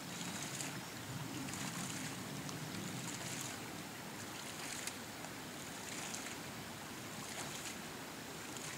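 Homemade ram pump running in a creek: a steady splash of water spilling from its weighted waste check valve, with a faint click about once a second as the valve slams shut on each water-hammer cycle.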